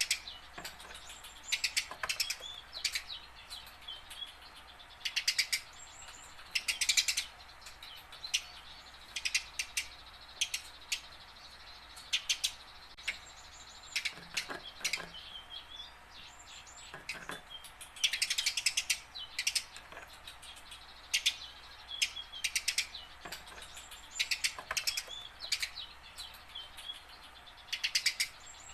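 Eurasian tree sparrow chirping in quick runs of short, sharp chips, separated by short pauses, with a few brief thin whistled notes between runs.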